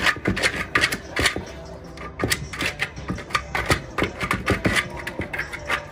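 A big dog's claws scrabbling and scraping on plywood and gravelly dirt while it works a ball, giving irregular knocks and scratches several times a second.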